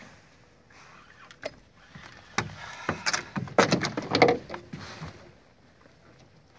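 Clicks, knocks and rattling of fishing gear being handled and knocked against the inside of a small boat, loudest and busiest about three to four and a half seconds in.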